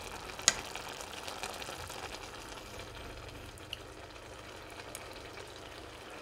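Saucepan of mung beans simmering faintly, a low even bubbling hiss, with one sharp clink of a spoon against the pot about half a second in.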